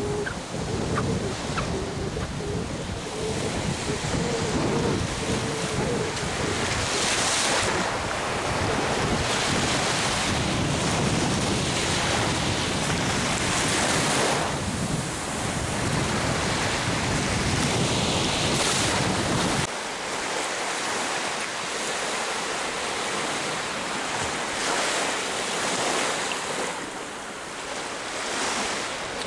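Baltic Sea waves breaking and washing up a sandy shore, surging every few seconds, with wind buffeting the microphone. The low wind rumble drops away about two-thirds of the way through.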